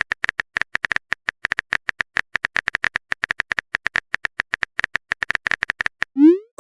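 Typing sound effect: rapid, irregular key clicks, about ten a second, stopping shortly before the end, where a short rising swoop begins.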